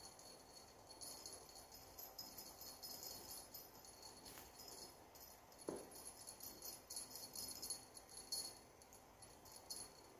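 Faint, irregular jingling of a small bell on a feather wand cat toy as it is waved and swatted, with one brief thump a little past halfway.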